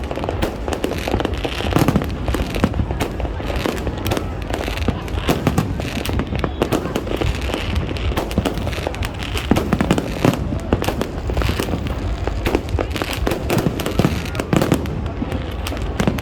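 New Year's fireworks going off in a continuous barrage: dense, rapid bangs and crackles over a steady low rumble.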